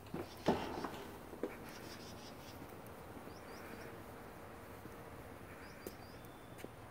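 Faint outdoor background with a few short, high bird chirps, a couple near the middle and a few more near the end, after several light knocks in the first second and a half.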